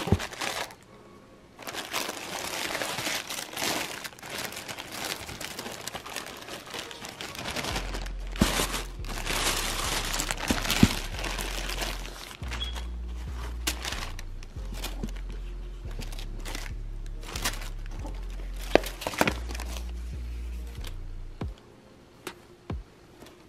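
Plastic wrap and tissue paper crinkling and rustling as a pair of shoes is unwrapped and handled in a shoe box, busiest in the first half, with a few sharp knocks. Background music with a bass line runs underneath and drops out near the end.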